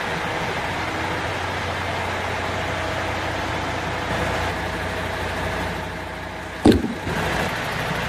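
MAN TGX 18.500 tractor unit's six-cylinder diesel idling steadily, with a single sharp knock near the end.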